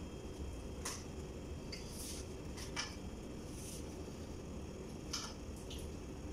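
Eating at a table by hand: scattered light clicks and clinks of plates and food, about eight in all, over a steady low room hum.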